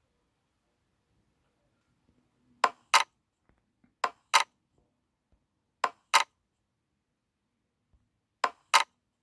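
An online roulette app's chip-placing sound effect: four double clicks, each pair marking a chip laid on the betting table, spaced a second or two apart.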